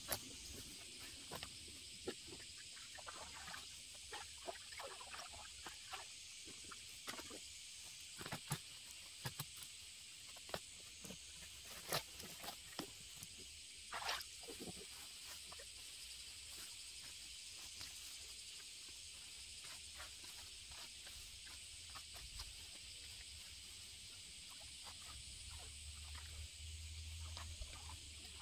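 Grass being cut and pulled by hand: faint rustling, with scattered snaps and clicks of stems, a few sharper ones in the middle. A steady high hiss sits underneath.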